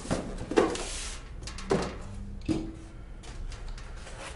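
Cardboard shipping box being opened by hand: the flaps are folded back and the packaging inside is handled, giving a few dull knocks and scrapes with quieter rustling between.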